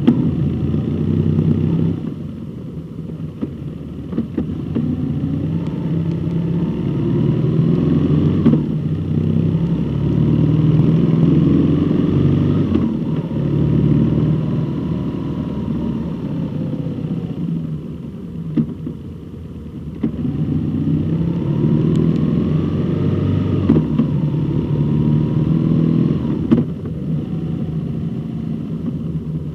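Road vehicle engine running under way, rising in pitch as it accelerates and dropping back at gear changes, about twice, with a steady low rumble underneath.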